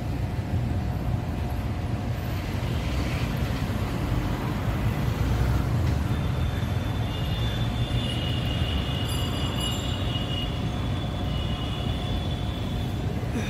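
Steady outdoor urban din with a dense low rumble. Thin high squealing tones come and go through the middle.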